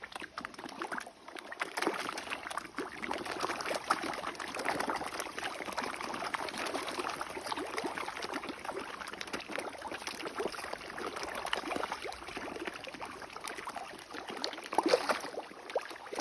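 Steady patter of many small splashes and slurps at a pond's surface as fish and geese scramble for feed, a little louder near the end.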